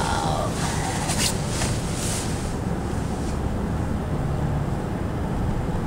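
Car cabin noise while driving: a steady low rumble of engine and tyres on the road, with a hiss in the first two seconds or so that fades away.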